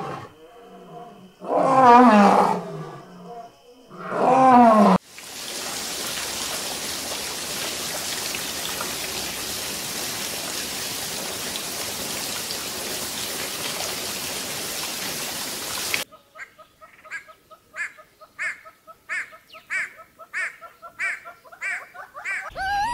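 Loud animal calls with falling pitch, two in the first five seconds. They give way to a steady hiss for about eleven seconds, and then to a quick series of short repeated calls, about two a second.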